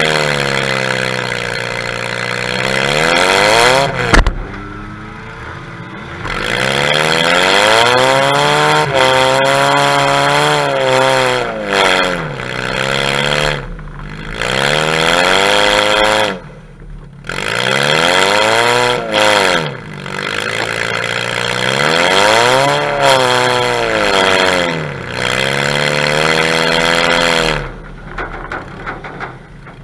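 Demolition derby car's engine, heard from a camera mounted on the car, revving up and falling back again and again as it drives, with a sharp crash of a hit about four seconds in. The engine note drops away briefly a couple of times and trails off near the end.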